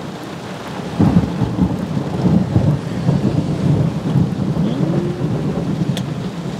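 Thunder from a big lightning strike: a low rumble that swells sharply about a second in and keeps rolling, uneven and crackling.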